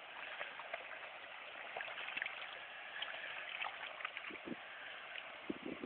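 Faint river water running and trickling over a shallow gravel and weed bed, with scattered light ticks.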